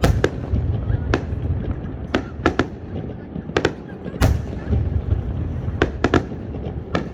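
Fireworks going off: about ten sharp bangs at irregular intervals, some in quick pairs, over a low rumble.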